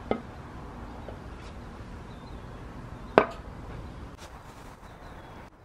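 Light metal clicks and one sharp clunk about three seconds in, as a Mazda 13B rotary's cast-iron end housing is lowered and guided onto the stacked engine's studs, over a steady low background noise.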